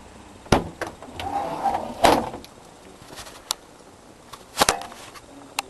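A series of sharp knocks and clanks, about seven in all, irregularly spaced; the loudest come about two seconds in and just before the five-second mark.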